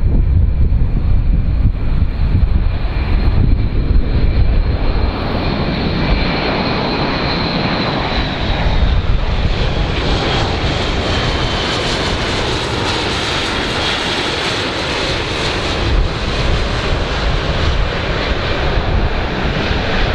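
Airbus A400M's four turboprop engines droning as the transport flies low past, with a high whine that drops slightly in pitch as it goes by. Low wind rumble on the microphone in the first few seconds.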